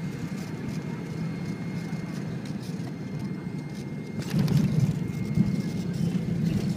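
Airliner cabin noise on landing: a steady hum of engines and airflow with a faint high tone over it. About four seconds in it becomes louder and rougher as the plane touches down and rolls along the runway.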